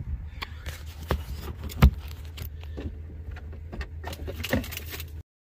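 Irregular sharp clicks and knocks, the loudest about two seconds in, over a low steady rumble; the sound cuts off suddenly near the end.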